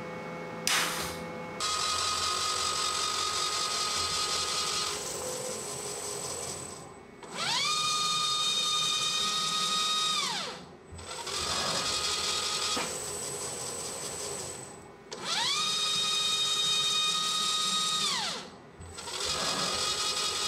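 CNC mill spindle, driven by a Marathon motor on a variable frequency drive, rigid tapping M8 threads in aluminum. Twice the motor's whine rises as the spindle spins up, holds steady and falls away as it stops, with lower steady running in between.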